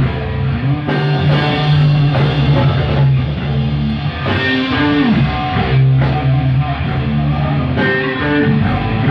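Live rock trio of electric guitar, bass guitar and drum kit playing loudly, the lead guitar holding notes that bend up and down in pitch over a steady bass line.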